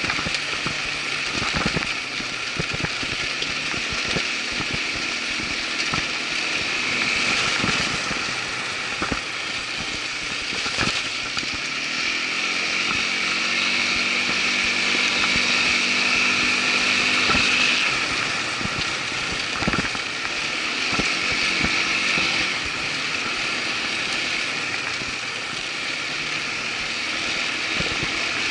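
Irbis ATV 200 quad bike's engine running under way, with frequent short knocks and rattles scattered throughout; the engine note is steadier and clearer in the middle stretch.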